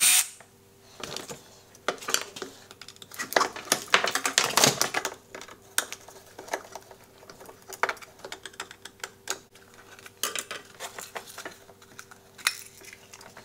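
Irregular metallic clicks and clinks of hand work on a small metal part: a screwdriver working a metal clip off a plastic speed-controller box, and small drilled-out rivet pieces dropping onto the bandsaw's metal table.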